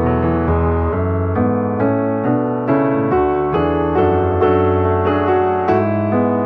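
Background piano music: a steady flow of notes and chords.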